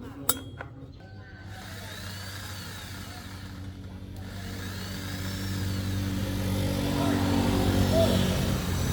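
A sharp click, then a motorcycle engine running steadily from about a second in, growing gradually louder.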